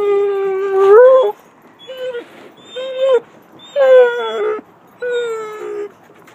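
Basset hound whining and howling in excitement: one long, steady howl that rises in pitch and breaks off about a second in, then four shorter whines.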